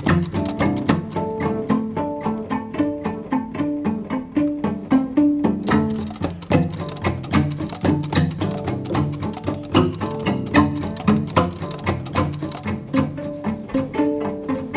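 Background music: an instrumental track with plucked and bowed strings and a steady beat.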